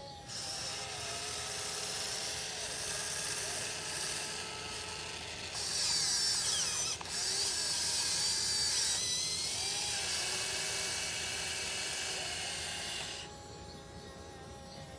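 Radio-controlled 1580 excavator's electric motors whining as it swings and works the arm and bucket, the pitches gliding up and down. It gets louder about six seconds in and stops shortly before the end.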